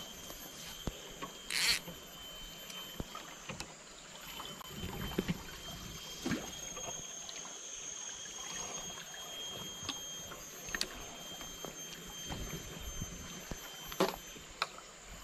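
Outdoor riverbank ambience: flowing river water under a thin, steady high insect whine, with scattered small clicks and knocks from handling a spinning rod and reel. A short sharp noise about two seconds in is the loudest sound.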